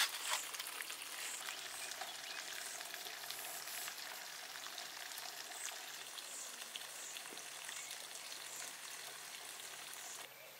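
Steady sizzling and crackling of something cooking, with a couple of sharp clicks at the start. It drops away suddenly near the end.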